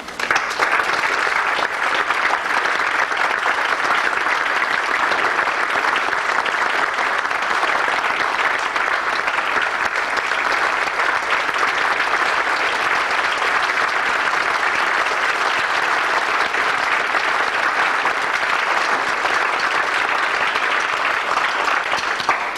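Audience applauding: dense, steady clapping that starts suddenly and stops near the end.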